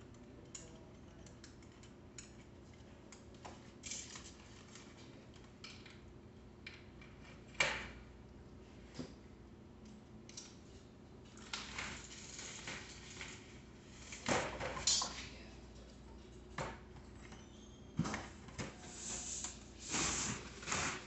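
Hand assembly of a bicycle: scattered light clicks and small metallic clatters of parts and tools being handled. A sharp knock comes about seven seconds in, then louder bouts of clattering and rustling in the second half, with cardboard from the bike's box handled near the end.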